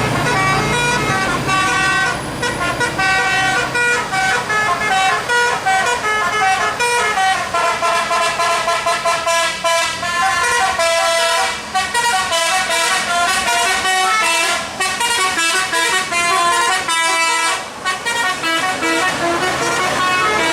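Bus telolet horn, a multi-tone musical air horn, playing a fast tune of short stepping notes almost without a break, with a few longer held notes partway through.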